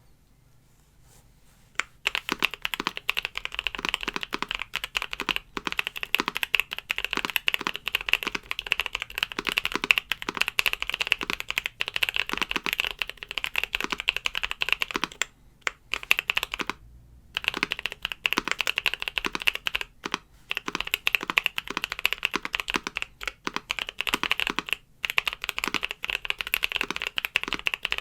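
Typing on a custom Keychron Q1 mechanical keyboard with lubed Boba U4T tactile switches, Nautilus keycaps, and tape and force-break mods: fast, continuous keystrokes. The typing starts about two seconds in, pauses for about two seconds a little past halfway, then resumes.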